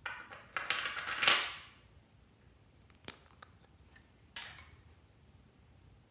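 Small plastic toy lipstick tubes being handled and uncapped: a few sharp plastic clicks and rattles, the loudest about a second in, then lighter clicks a few seconds later.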